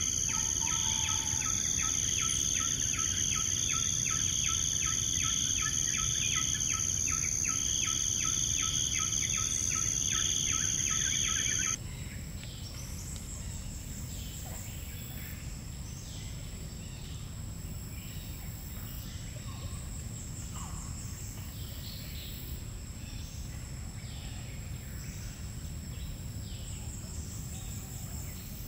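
Tropical forest insect chorus: a loud, shrill, steady drone with a rapid regular pulsing, which cuts off abruptly about twelve seconds in. After that a quieter forest ambience follows, with a thin steady high insect tone and scattered short bird chirps.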